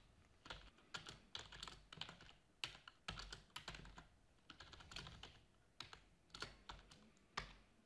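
Faint typing on a computer keyboard: irregular runs of keystroke clicks with short pauses between them.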